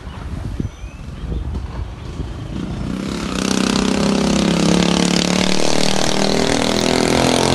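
A motor vehicle engine running with a steady pitch, growing louder about three seconds in and then holding.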